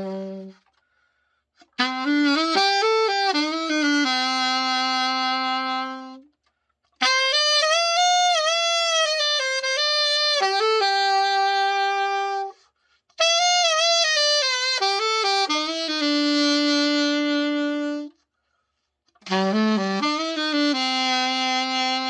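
Selmer Super Action II alto saxophone played solo in four short melodic phrases, each ending on a long held note with brief pauses between, as a play test after its full overhaul.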